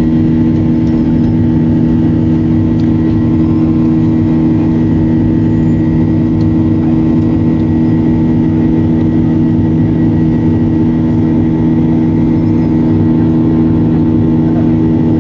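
Cabin of a Boeing 737 climbing after takeoff: the jet engines give a loud, steady drone with several constant low humming tones over a rumble.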